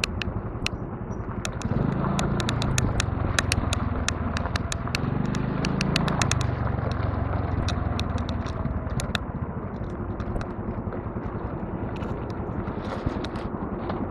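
Honda Navi 110 scooter's small single-cylinder engine running at low speed. It pulls harder from about two seconds in until about seven seconds, with many sharp clicks scattered over it.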